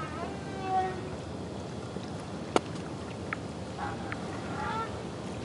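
Whale calls, as heard underwater: wavering cries that rise and fall in pitch, fading and returning as a few shorter calls near the end, with one sharp crack about two and a half seconds in.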